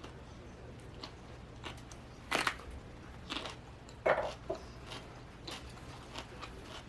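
Close-miked eating: chewing with a few short, crisp crunches, the sharpest a little over two seconds in and around three and four seconds in, between softer mouth clicks.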